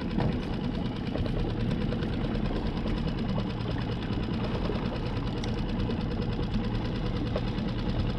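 Outboard motor running steadily at trolling speed, with a fast, even rhythm.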